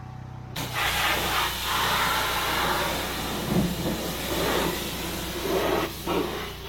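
Pressure washer spray jet hissing as it blasts packed mud out of a truck body compartment, starting abruptly about half a second in. A steady engine hum runs underneath.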